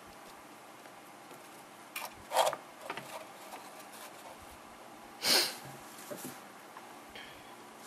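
A plastic scale model tank being handled on a desk: a few faint clicks and rustles over quiet room hiss. There is one louder, short hiss about five seconds in.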